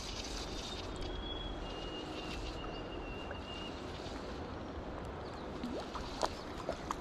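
Steady rush of river current flowing past. A faint thin high tone runs for a couple of seconds from about a second in, and a few light clicks and knocks come near the end.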